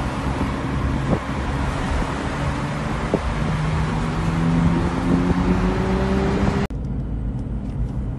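Car driving along, heard from inside: a steady rush of road and wind noise, with the engine's low hum rising in pitch from about three seconds in as the car speeds up. Near the end the rush cuts off abruptly to quieter car noise.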